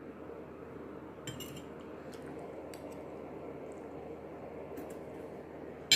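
Cutlery clinking lightly against a plate while eating: a few soft scattered taps over a faint steady background hiss, with a sharper click at the very end.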